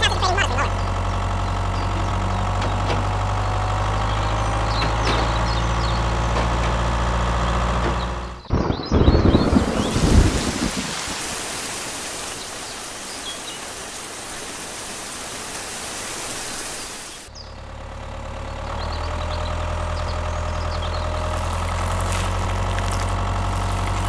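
A tractor engine running at a steady low idle. About eight seconds in it gives way to a steady hiss like heavy rain, with a few heavy thumps at first. The hiss stops suddenly about nine seconds later and the engine returns.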